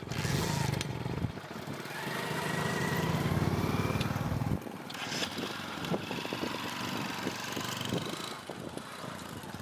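A small engine running with a fast, even pulse, loudest in the first four and a half seconds and then dropping away abruptly, followed by scattered light clicks.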